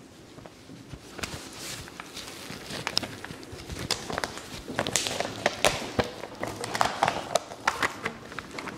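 Sheets of paper being handled and shuffled on a lectern: rustling with scattered light taps and clicks.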